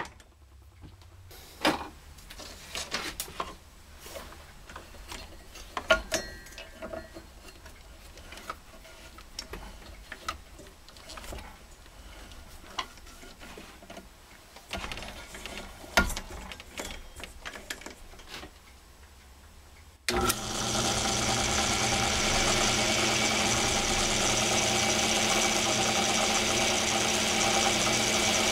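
Small belt-driven metal lathe: its running stops at the start, followed by a quiet stretch of scattered clicks and knocks as the machine is handled. About 20 seconds in, the lathe comes in running again suddenly and holds a steady hum.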